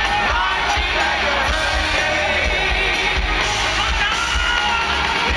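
Hard rock band playing live, the singer's voice over the full band, with the crowd yelling along, heard from within the audience.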